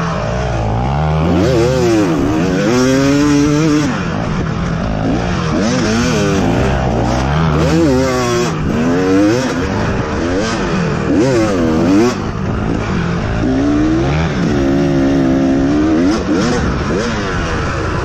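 Off-road vehicle engine on the throttle, revving up and down over and over, its pitch rising and falling every second or two. A lower, steadier engine note runs underneath.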